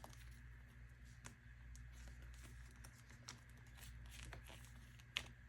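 Faint, sparse ticks and light rustles of photocards being handled and slid into plastic binder sleeves, with one sharper click about five seconds in.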